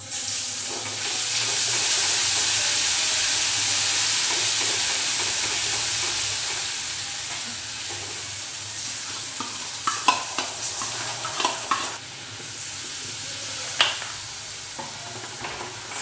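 Spices frying in hot oil in a pan start sizzling loudly all at once as a wet ingredient goes in. The sizzle slowly dies down over several seconds. Near the end a spoon scrapes and clicks against the pan a few times while the masala is stirred.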